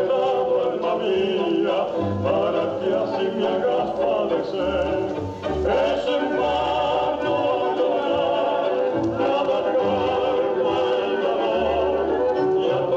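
Slow tango music: a melody with a quick, wavering vibrato over low bass notes that come and go.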